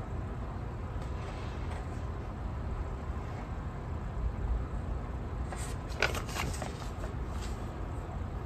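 Paper sticker sheets being handled, with a few light rustles and taps about six seconds in, over a steady low background rumble.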